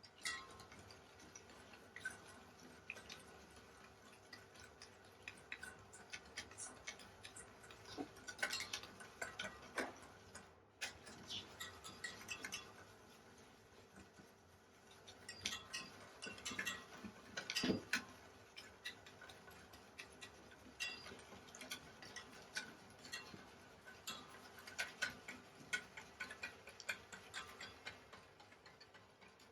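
A whisk clicking and tapping against a bowl in quick irregular runs, as hot milk is slowly whisked into egg yolks and sugar to temper them.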